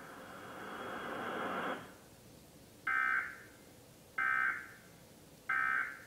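Emergency Alert System end-of-message signal from a TV speaker: three short, identical bursts of warbling digital data tones about 1.3 seconds apart, marking the end of the test alert. A hiss runs before the bursts and stops about two seconds in.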